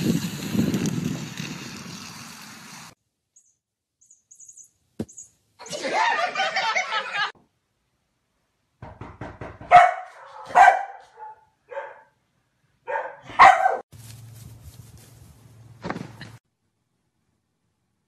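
A dog barking: a few short, sharp barks around the middle, and another near the end.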